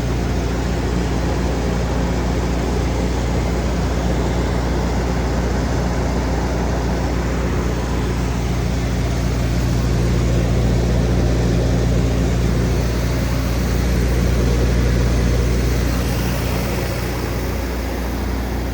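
Cummins diesel engine of a Wacker Neuson G100 generator set running steadily, a constant low engine hum.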